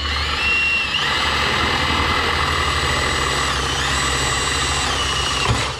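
Cordless drill running steadily, boring a new hole through the heat pump's sheet-metal panel; its motor whine shifts pitch a few times and cuts off near the end.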